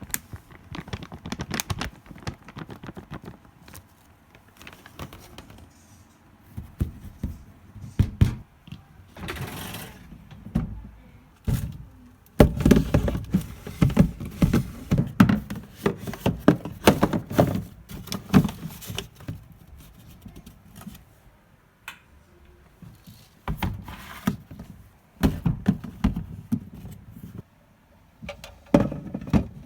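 Irregular knocks, thunks and clatter of household objects being handled and set down, in bursts with short pauses.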